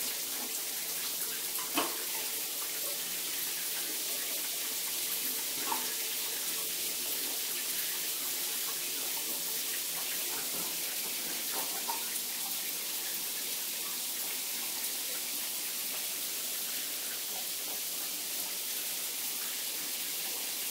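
Water running steadily into a bathtub, an even hiss, with a few faint clicks.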